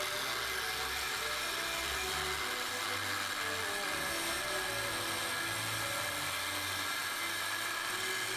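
Angle grinder with a thin cutting disc cutting a groove into a steel railroad spike, running steadily under load with a high whine and a grinding hiss.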